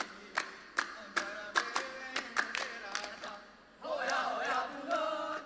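A group of performers chanting in unison, punctuated by sharp hand claps about two to three a second. About three seconds in the clapping stops, and after a short pause the chant carries on louder.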